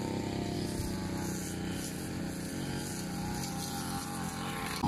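A small engine running steadily at an even speed, with no change in pitch.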